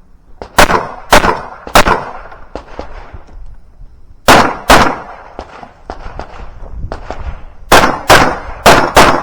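Pistol shots fired in a timed IDPA course of fire: three quick shots, then two more a couple of seconds later, then four in quick succession near the end.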